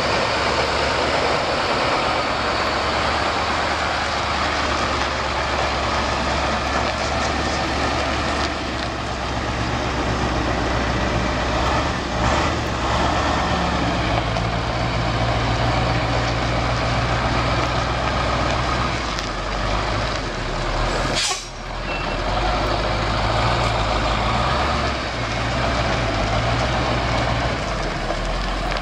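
Ford LT9000 heavy truck's engine running as the truck drives slowly past, the engine note stepping up and down in pitch. There is a short burst of air hiss about two-thirds of the way through.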